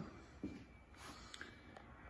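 Near silence: quiet garage room tone, with one faint short sound about half a second in and a couple of tiny clicks later.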